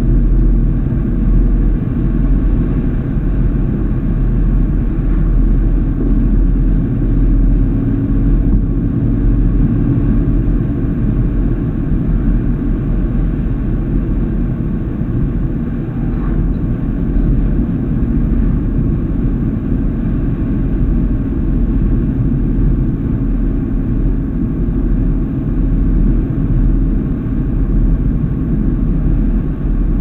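Car driving steadily at road speed, heard from inside the cabin: an even low rumble of road and engine noise.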